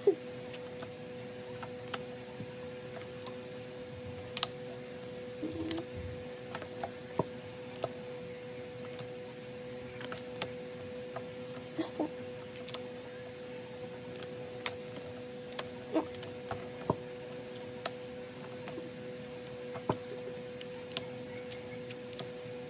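Scattered light clicks and taps of stiff photocards being flipped through and shuffled in the hands, over a steady faint hum.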